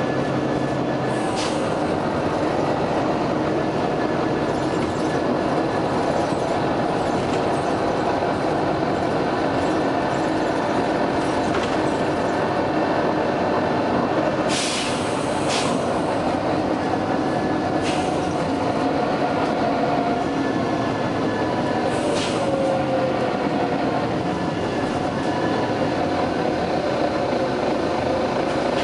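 Volvo B9TL double-decker bus's nine-litre six-cylinder diesel running and road noise heard from inside the bus, with several short hisses of air from its air system, two of them close together about halfway through.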